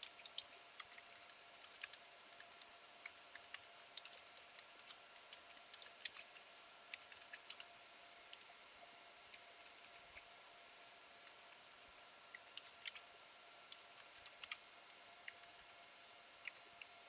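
Faint typing on a computer keyboard: irregular key clicks, in quick runs through the first half and more scattered later, over a faint steady hum.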